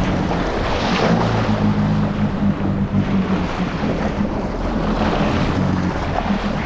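Yamaha GP1800R SVHO jet ski's supercharged four-cylinder engine running steadily under way, with water and wind rushing.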